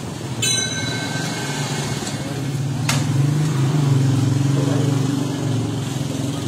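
Steady low drone of a running engine that swells slightly in the middle, with a brief high-pitched tone about half a second in and a single sharp click near three seconds.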